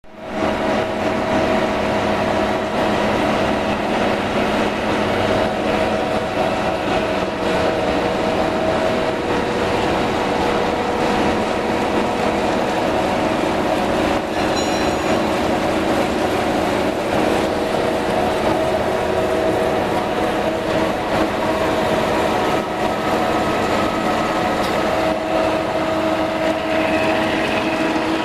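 T2120 deep hole drilling machine running under power: a steady mechanical hum and whine with several held tones that fade and come back over time.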